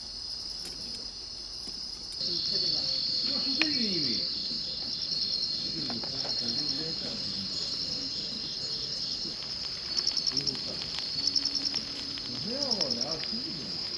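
Crickets chirping in a steady high drone that grows louder about two seconds in. In the second half, short pulsed trills of a few quick chirps repeat about every second and a half. Faint distant voices sit underneath.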